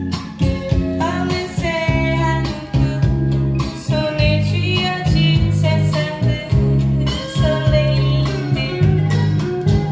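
A blues song, a woman singing over plucked guitar and a steady bass line, played back through a hi-fi system's 300B tube amplifier and floor-standing loudspeakers and heard in the listening room.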